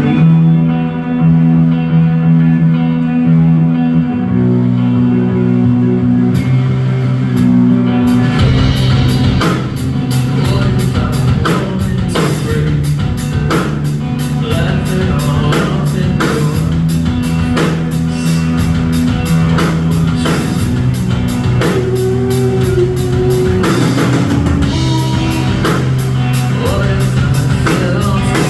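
Live rock band playing through a club PA: held electric guitar chords at first, then drums and cymbals come in about eight seconds in and the full band plays on.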